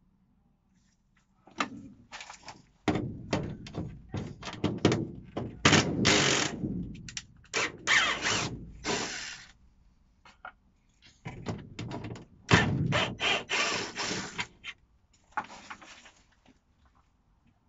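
Cordless drill-driver working screws out of an aluminium greenhouse window frame in short bursts, with sharp knocks and rattles of metal. There are two busy spells with a pause in between.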